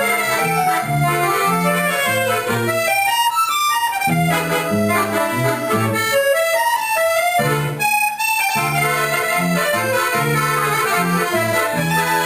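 Accordion ensemble of three accordions with bass guitar playing a melody over a rhythmic bass line. The low bass drops out briefly twice, a few seconds in and again about two-thirds of the way through.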